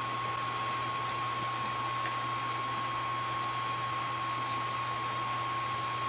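Steady background hiss and low hum of the recording, with a thin, steady whine and a few faint ticks scattered through it.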